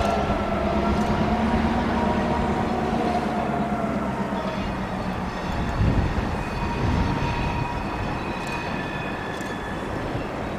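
EMD GP38-2 diesel-electric locomotive, its 16-cylinder two-stroke engine running steadily as it pulls a freight train at low speed. From about six seconds in, faint steady high tones join it.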